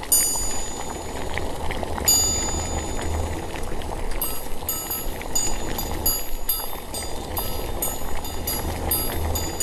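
Intro sound bed: a steady low rumbling noise under bright, high ringing strikes. After a strong strike about two seconds in, the strikes come roughly twice a second from about four seconds in.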